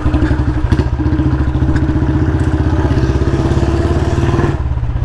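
Royal Enfield Bullet 350's single-cylinder engine running under way at low speed, with a rapid, even beat of firing pulses. About four and a half seconds in, the beat drops away to a smoother, softer running.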